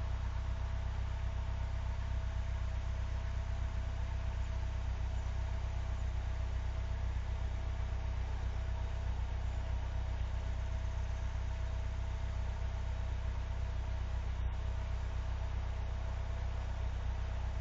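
Vehicle engine idling steadily while warming up after a hard cold start in sub-zero weather: an even low rumble with a faint constant whine above it.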